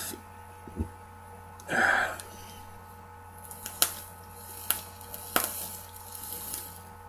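A person takes a draw on a mechanical-mod vape with a rebuildable dripping atomiser: a short breathy rush of air about two seconds in, then a few sharp clicks and faint breath as the vapour is exhaled.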